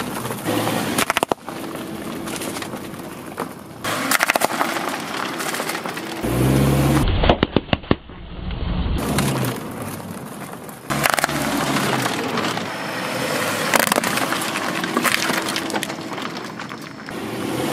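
A car tyre rolling over and crushing things on asphalt: bags of crunchy corn snacks, wrapped snack bars and plastic cups of slime crinkle, crunch and crack. The sound comes in several short stretches of crackling and sharp snaps with low tyre rumble, changing abruptly every few seconds.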